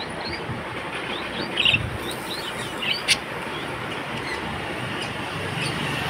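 Budgerigars chirping in short, scattered calls over a steady background hiss, with a single click about three seconds in.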